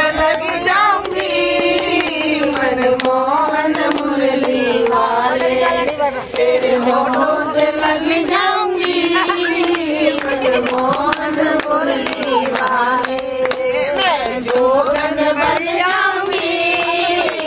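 A group of women singing a devotional chant together in unison, the melody wavering and held on long notes, with hand clapping keeping time.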